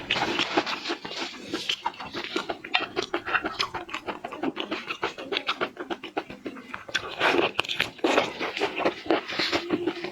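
Crunching and chewing of shrimp, a dense run of rapid crackles and clicks with louder clusters about three and seven seconds in.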